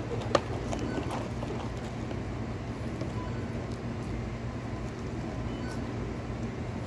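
Steady low hum and hiss of restaurant background noise, with one sharp click about a third of a second in.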